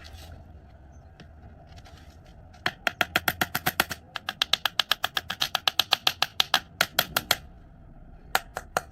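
Knife rapidly chopping through kinetic sand, the blade tapping the surface beneath about six times a second in a fast run with one short break, then three more cuts near the end.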